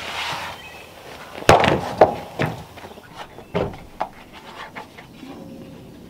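Wooden boards scraping, then knocking together in several sharp knocks as lengths of lumber are laid against a wooden frame. The loudest knock comes about a second and a half in.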